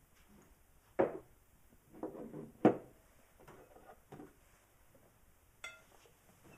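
A series of sharp knocks and clatters, as of objects being handled and set down. The loudest is just before three seconds in, and a short click with a brief ring comes near the end.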